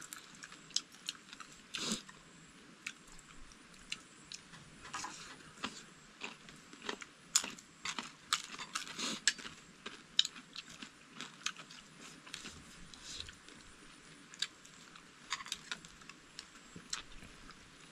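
Someone eating close to the microphone: irregular crisp crunching bites and chewing of food.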